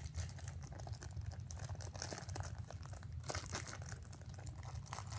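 Zip-top plastic bag of slime being handled, crinkling and crackling in irregular bursts.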